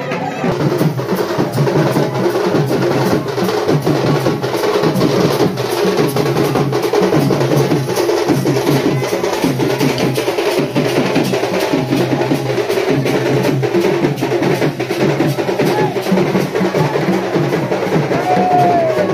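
Drums beating a fast, steady rhythm, with a crowd's voices underneath.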